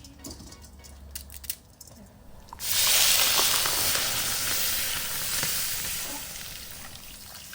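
Food going into a hot pan: a sudden loud sizzle starts a little over two seconds in and slowly dies down.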